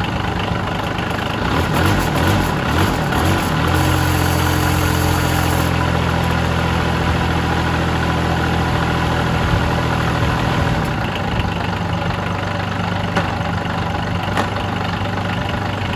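Small diesel engine idling steadily on a stand with a truck transmission and chain-drive transfer case coupled to it. About four seconds in, its note settles into a clearer, even hum, and it shifts again near eleven seconds.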